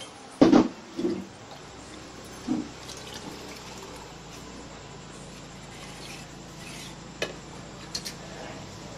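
Metal cookware knocking loudly three times, then liquid being poured from a tipped aluminium pot into a steel pan of mango dal. Two short sharp taps near the end.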